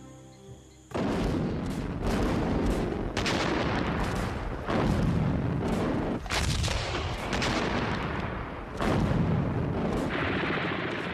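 Battle soundtrack of rapid gunfire with several heavy artillery blasts, starting suddenly about a second in.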